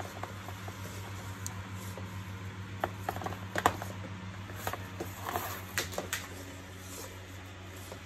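Vacuum cleaner power cord and plug handled by gloved hands on a cardboard surface: scattered light taps and clicks, busiest in the middle. A steady low hum runs underneath.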